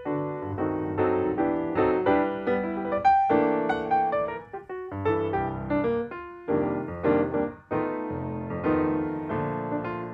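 Background piano music, a melody of quick notes over chords.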